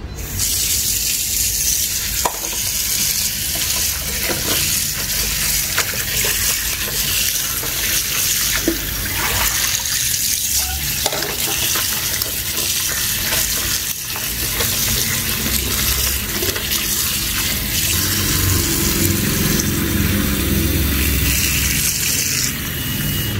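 Tap water running steadily into a steel bowl of okra, splashing as the pods are rubbed and rinsed by hand, with a few faint knocks against the bowl.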